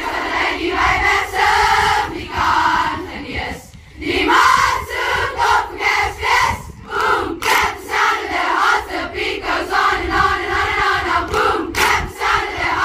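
A large group of school pupils chanting a war cry in unison, rhythmic shouted phrases with short breaks between them, a little under 4 seconds in and again near 7 and 12 seconds.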